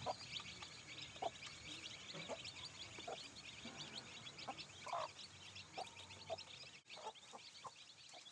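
Domestic chicks peeping: a constant flurry of short, high peeps, with occasional lower clucks from an adult hen mixed in.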